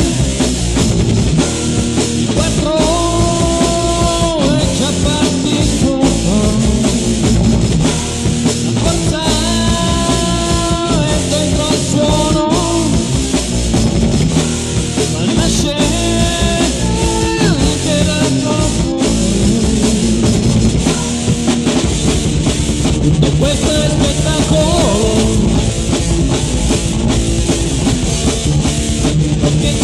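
Heavy metal song recording: electric guitars, bass and a full drum kit playing steadily, with long held melody notes over the band at several points.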